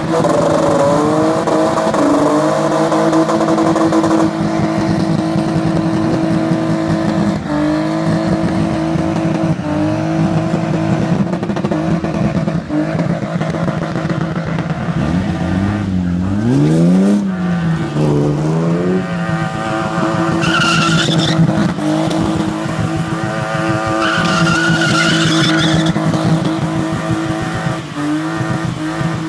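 BMW E36 325i's straight-six engine held at high, steady revs as the car spins donuts with its rear tyres spinning, a second drift car running alongside. About two-thirds of the way through the revs dip and climb back, and near the end tyre squeal rises twice.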